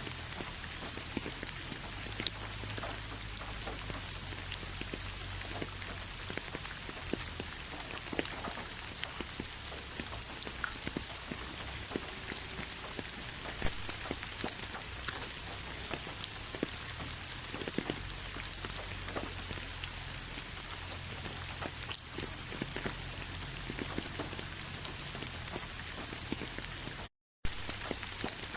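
Steady rain falling, many separate drops tapping and clicking on a surface over a constant hiss. The sound cuts out completely for a split second near the end.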